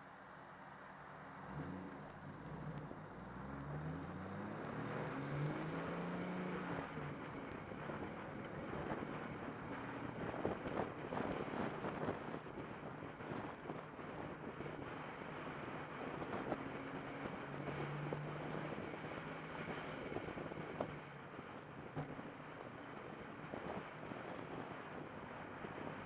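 Turbocharged car engine pulling up through the revs twice in quick succession, like acceleration through the gears, then running on under steady road and wind noise.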